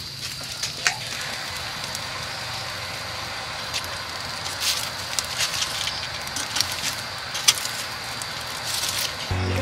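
Charcoal fire crackling under banana-leaf-wrapped rice cakes on a wire grill: a steady hiss with scattered sharp pops and snaps, more of them in the second half. Music comes in just before the end.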